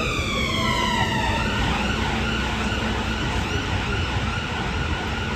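Emergency vehicle siren: its pitch slides down over the first second or so, then holds steadier and fainter, over the steady rumble of street traffic.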